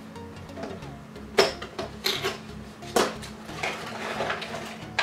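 A cardboard headphone box being handled and its end flap opened by hand: a few sharp taps and clicks of the card, the loudest about a second and a half in and again at three seconds, over a faint steady hum.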